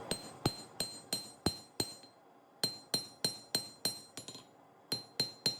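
Hammer blows on hot steel over an anvil, forging the tang of a knife from lawnmower blade steel: a steady run of ringing strikes, about three a second, with two short pauses.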